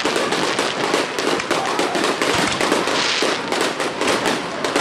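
Fireworks going off: a dense, rapid crackle of many small bangs, with a brief hiss about three seconds in.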